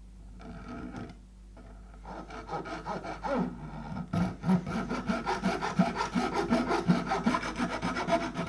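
A hand saw cutting through a hard plastic dog bone in quick back-and-forth strokes, about two or three a second. The strokes get louder about four seconds in.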